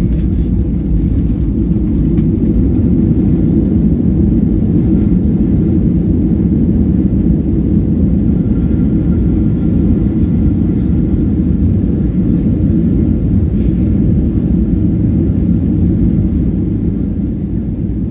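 Loud, steady low roar inside the cabin of a Boeing 737-800 on its landing roll: its CFM56 engines and the wheels rumbling on the runway as the jet decelerates, easing off near the end.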